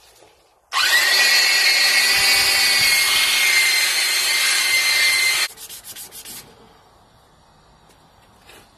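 Handheld electric sander working a steel plate at 500 grit to prepare it for etching. It starts about a second in with a briefly rising whine, runs steadily with a gritty hiss, and stops suddenly about four and a half seconds later. A few faint clicks follow.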